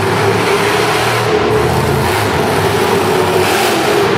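Monster truck engines running loud with a steady drone, as a truck drives hard up a dirt ramp into a jump near the end.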